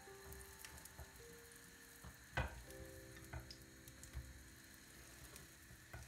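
Hotteok (Korean filled pancakes) sizzling as they fry in oil in a nonstick pan. A spatula knocks against the pan a few times as a pancake is turned, the sharpest knock about two and a half seconds in.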